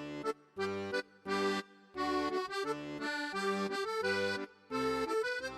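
Background music: a bouncy accordion tune with a bass line, played in short phrases with brief pauses between them.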